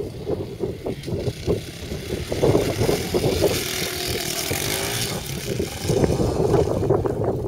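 Honda CRF230F dirt bike's four-stroke single-cylinder engine running and revving as it is ridden across grass, its pitch rising and falling with the throttle.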